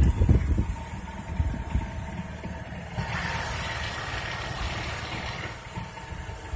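Car driving in the rain, heard from inside the cabin: an uneven low road rumble, with a steady hiss coming in about three seconds in.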